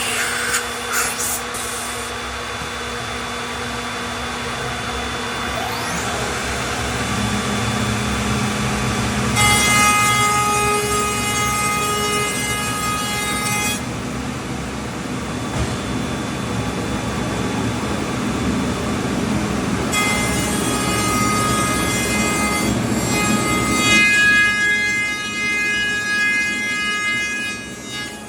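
HOLZ-HER Evolution 7405 vertical CNC machining centre running with a steady mechanical noise, joined three times by a high whine of several steady tones that sets in and stops.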